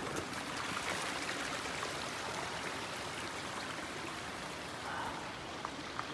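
A small mountain stream running steadily.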